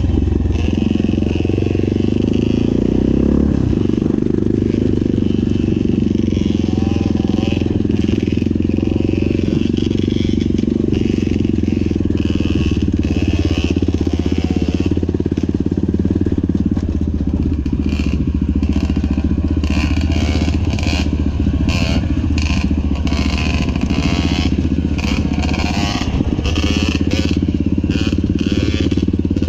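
Honda XR single-cylinder four-stroke dirt bike engine running steadily under way, heard close from the bike itself. In the second half it is broken up by rapid crackling noise from the rough trail.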